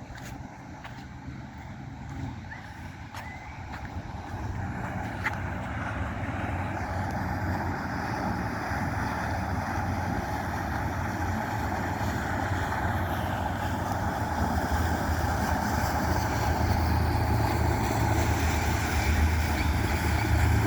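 An engine running with a steady low hum that grows gradually louder.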